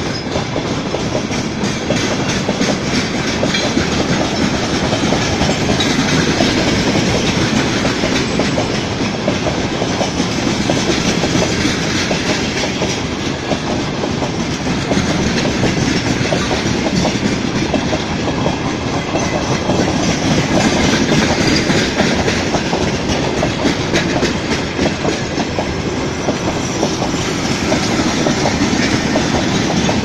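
Freight train of loaded open-top wagons rolling past, steel wheels clattering over the rail joints in a steady, loud rumble.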